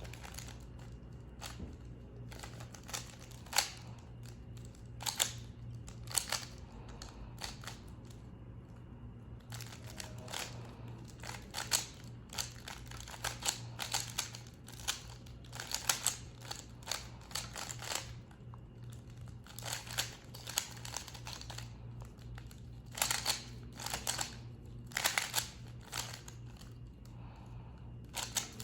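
A 3x3 Rubik's cube being turned quickly by hand in a timed solve: irregular runs of plastic clicks and clacks as the layers turn, broken by short pauses, over a steady low hum.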